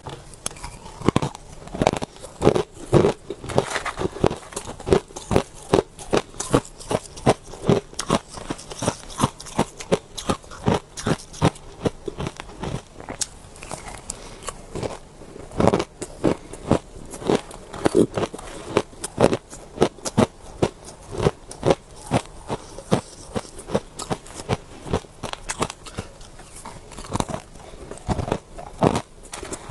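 Close-miked bites and chewing of powdery shaved ice: a rapid, uneven run of crisp crunches and crackles, several a second.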